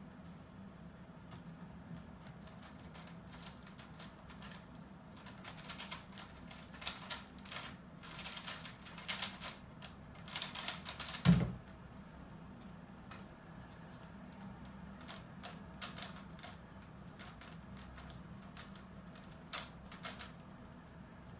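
GAN Infinity 3x3 speed cube being turned fast, its layers clacking in quick dense runs, with one loud thump about eleven seconds in. After the thump the turning goes on with sparser, quieter clicks.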